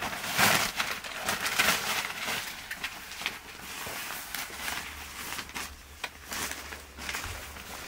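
Fabric carry bag rustling and sliding as a folded camping cot is pulled out of it, loudest in the first two seconds, then lighter clicks and knocks from the cot's folded frame as it is handled and stood upright.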